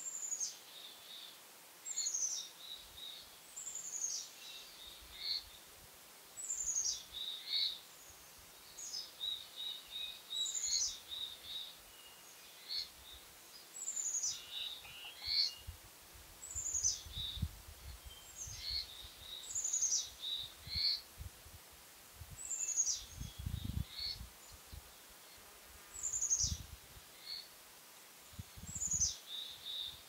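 A songbird sings the same short phrase over and over, roughly every two seconds. Each phrase opens with a high note sliding down and ends with a few quick, lower notes.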